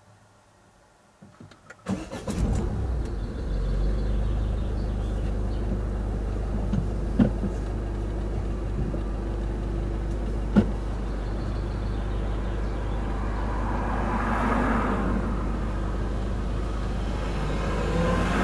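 Car engines idling with a steady low rumble at closed railway crossing barriers, starting suddenly about two seconds in, with two sharp knocks partway through. Another car pulls up and the noise swells about three-quarters of the way in.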